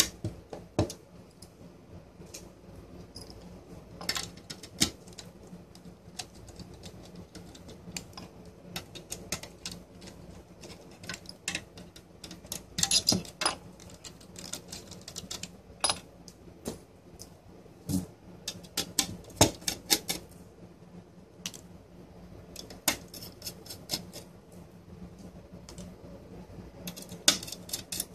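Small screwdriver driving screws through a network switch's circuit board into its metal case, heard as irregular sharp metal-on-metal clicks and taps.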